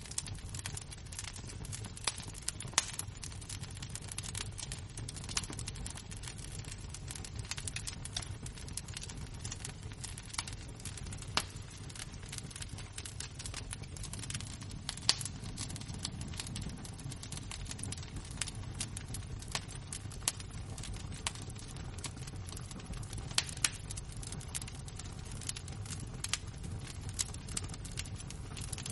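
Burning embers crackling, with dense irregular small pops and a few louder ones over a low steady rumble.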